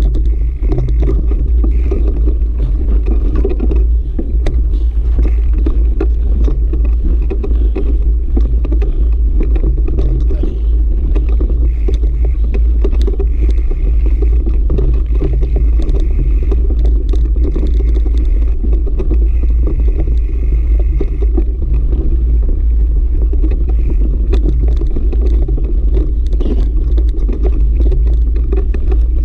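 Mountain bike ridden over a rough, stony dirt trail: a steady heavy wind rumble on the microphone, with constant small knocks and rattles from the bumps.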